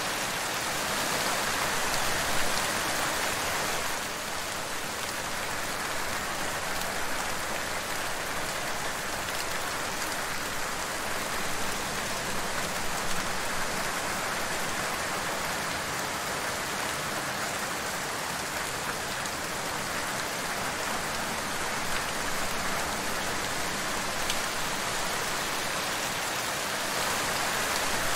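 Steady rain falling, an even dense patter with a few sharper drop hits now and then.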